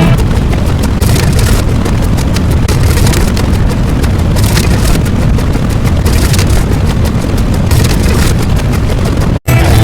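A loud, continuous rumbling noise, explosion-like and with no clear pitch, that cuts out abruptly for a split second near the end.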